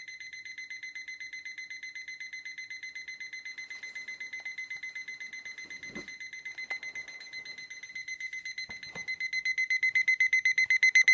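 Electronic alarm clock beeping in rapid pulses at one high pitch, several beeps a second, getting much louder over the last second or two.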